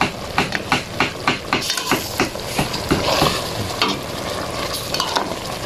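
Chicken in its own juices being stirred in a pot over high heat, the utensil scraping the pot in quick strokes, about three or four a second, over a steady sizzle as the liquid cooks down.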